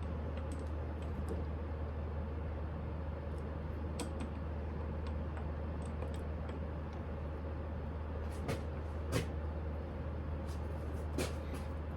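Steady low hum of running shop machinery, with a few light metallic clicks and taps from tool adjustment.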